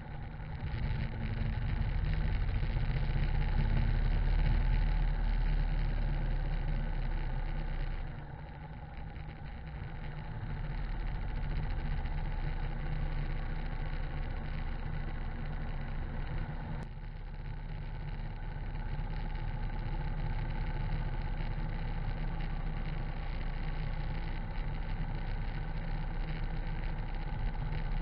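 Harley-Davidson V-twin engine running as the motorcycle rides along a wet road, with a steady hiss of tyres and spray beneath it. The engine eases off briefly about eight seconds in and again just past the middle, then picks up.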